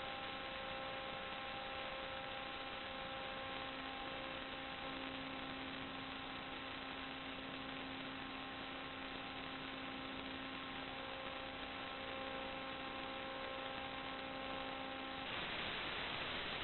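Steady hiss with an electrical buzz of several even tones, the sound of an analog FPV video link's audio channel carrying interference rather than a microphone. About fifteen seconds in the buzz cuts off suddenly and only a louder, even hiss remains.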